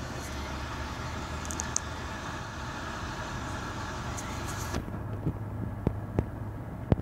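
Steady background hiss over a low hum. The hiss drops away abruptly about five seconds in, and a few sharp clicks follow near the end.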